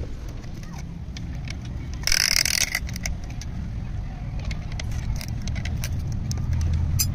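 Light metallic clinks and taps from pistons and rings being handled at a bare engine block, over a steady low rumble. A short, loud hiss comes about two seconds in.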